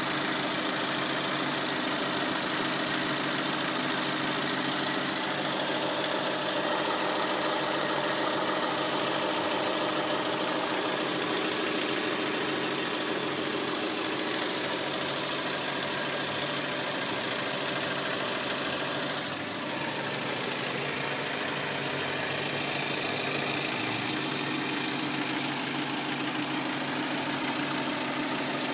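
2003 Hyundai Elantra's four-cylinder engine idling steadily, with a rapid ticking coming from the back of the engine.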